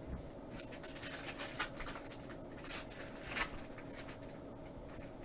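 Trading cards sliding and scraping against one another as they are flipped through by hand, a dry rustle with two louder swipes, one near the middle and one a little later.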